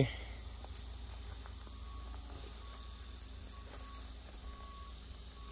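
Insects chirring in a steady, high, even drone, over a low steady rumble.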